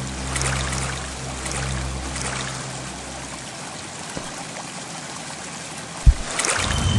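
Flowing-water sound effect over a low, sustained music bed that fades out about halfway through. A single sharp thump, the loudest sound, comes near the end, and the sound then swells louder.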